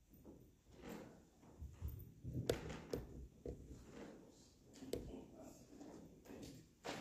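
Faint scattered knocks, clicks and thumps over a low room rumble: movement and handling noise while people get ready. The sharpest clicks come about two and a half, three and five seconds in, with another near the end.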